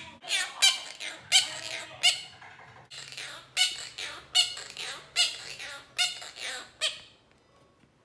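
Monk parakeet squawking: a rapid run of short, harsh calls, about two a second, that stops about seven seconds in.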